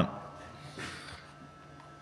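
Quiet shop room tone with a faint steady hum, and a brief soft rustle just under a second in.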